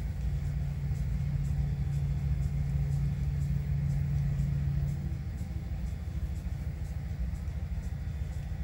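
Digital sound of EMD SD40-2 diesel locomotives working hard on a heavy uphill train, from model-railway sound decoders played through Rolling Thunder subwoofer speakers: a deep, steady rumble. A steady low hum rides on it and stops about five seconds in.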